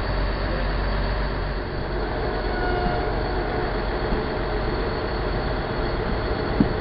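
First Great Western High Speed Train Mark 3 coaches rolling slowly past along the platform, giving a steady rolling noise of wheels and running gear. A single short knock comes near the end.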